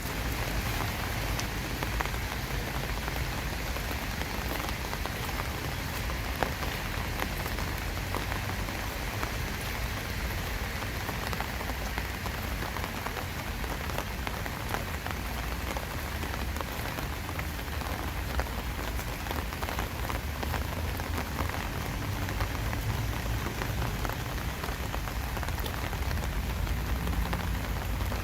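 Steady summer rain falling: a dense, even hiss of rain on surfaces with many scattered individual drops ticking through it, over a low rumble.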